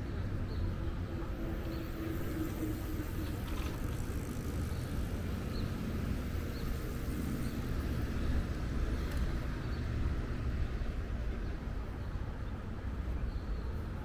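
Outdoor park ambience: a steady low rumble, with faint short high chirps every second or so.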